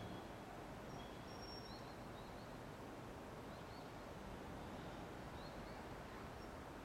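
Faint outdoor ambience: a steady low hiss and rumble, with small birds giving scattered short, high chirps.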